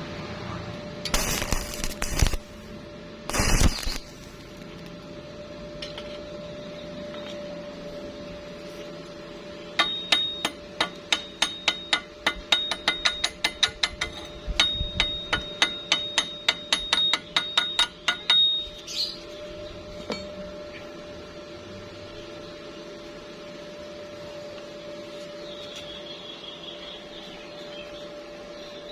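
Hammer striking steel in a rapid series, about four ringing metallic taps a second for some eight seconds, over a steady hum. Two short, harsh scraping bursts come in the first few seconds.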